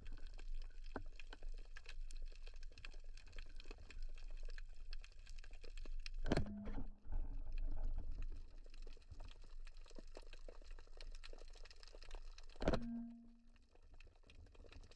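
Underwater ambience of a steady low rumble and fine crackling, broken twice by a sharp snap from a speargun being fired, once about six seconds in and once near the end, each followed by a brief low hum.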